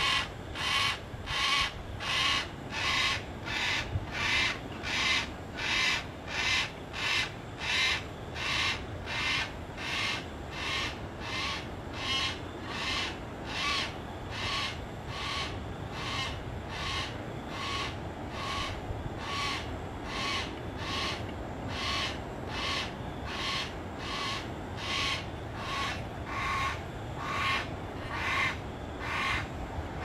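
Yellow-tailed black cockatoo calling over and over: short, harsh, rasping calls at an even pace of about one and a half a second.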